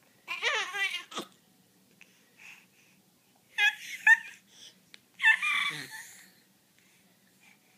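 Baby's high-pitched squeals and babbling in three short bursts, the pitch wavering up and down, with quiet between them.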